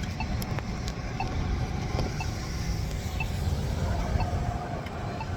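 Wind buffeting the microphone as a steady low rumble, with a few sharp clicks. Faint short beeps sound about once a second behind it.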